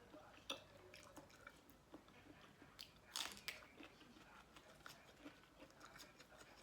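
Faint close-up chewing and crunching of spicy seafood papaya salad, a run of small irregular mouth clicks with a louder crunch a little after three seconds in.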